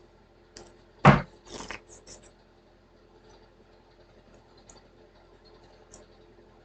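A single sharp thump about a second in, followed by a few lighter clicks and taps, like objects being set down and handled; then only faint scattered ticks.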